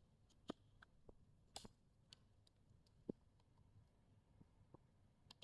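Faint, scattered clicks and taps of multimeter test probes and the meter being handled, likely while the probes are inserted for a mains voltage measurement. The clicks are irregular, with the strongest about half a second, a second and a half and three seconds in.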